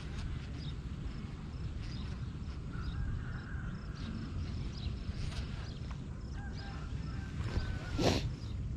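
Outdoor ambience with a steady low rumble, short high chirps repeating about twice a second, and faint calls. A brief loud rushing noise comes about eight seconds in.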